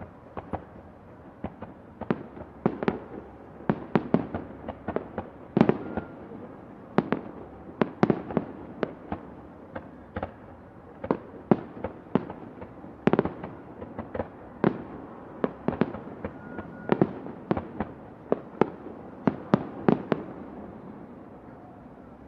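Fireworks going off: a dense, irregular string of sharp bangs of varying loudness, several a second at times, over a constant background of fainter, more distant bangs and crackle.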